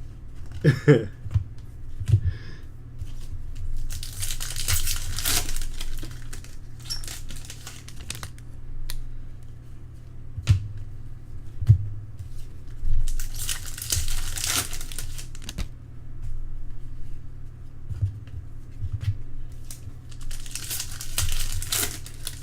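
Trading-card pack wrappers being torn open and crinkled, in three bursts of about two seconds each, with a few light taps of cards being handled in between, over a steady low hum.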